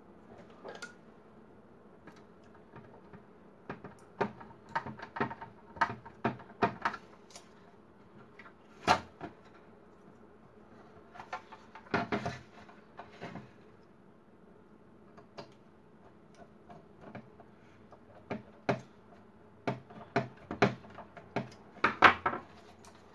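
Plastic colour laser toner cartridge being handled and put back together by hand: irregular clicks, snaps and knocks of its plastic parts against each other and on the wooden bench, coming in clusters, the loudest near the end.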